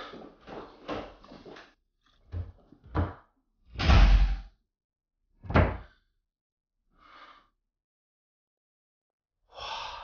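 A man breathing hard in short gusts, then heavy thuds, the loudest about 4 s in and another about a second and a half later, as something is slammed down hard.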